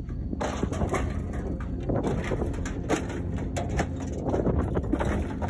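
Footsteps crossing weathered wooden boards and corrugated metal sheeting, a run of irregular crunches, creaks and clanks.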